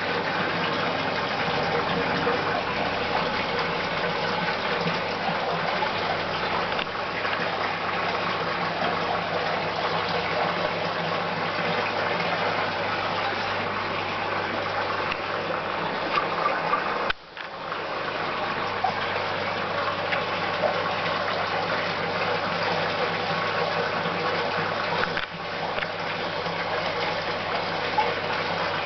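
Aquarium filtration running steadily: water gushing and splashing over a low pump hum. It cuts out briefly once, about two-thirds of the way through.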